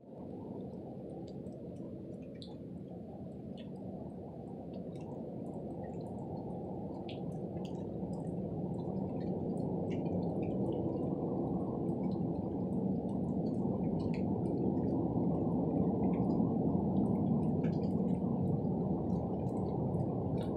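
A low, noisy rumble from the sky that grows steadily louder, with faint scattered ticks above it.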